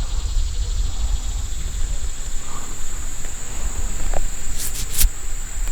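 Steady high-pitched insect chorus, with a low rumble underneath and a few short clicks near the end.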